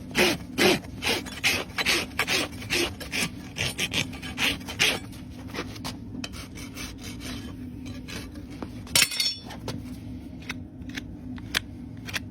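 Farrier's rasp filing a horse's hoof in rhythmic strokes, about two to three a second, then lighter and fainter scraping about five seconds in, with one sharp click near the end.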